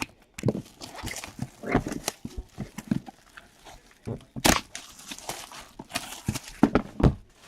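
Packaging of a trading-card case being handled and opened: an irregular run of crinkling and rustling with sharp clicks, the loudest about four and a half seconds in and again near the end.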